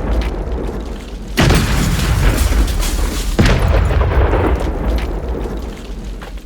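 Two deep booms from black powder charges going off, about two seconds apart. Each starts suddenly and trails off in a long low rumble.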